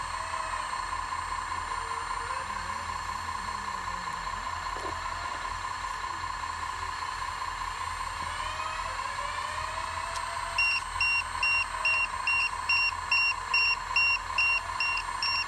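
Steady whine of a radio-controlled Hitachi hydraulic excavator's pump and motor running under a faint low hum. About ten seconds in, evenly spaced electronic warning beeps start, about two a second, from a model's sound module.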